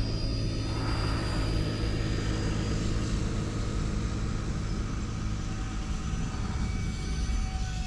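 Twin electric ducted fans of a UMX A-10 Thunderbolt II RC model jet whining as it flies overhead, with a steady low rumble underneath.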